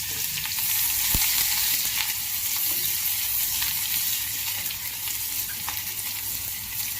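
Chopped onions sizzling as they fry in hot oil in a pan, a steady crackling hiss, with a sharp knock about a second in.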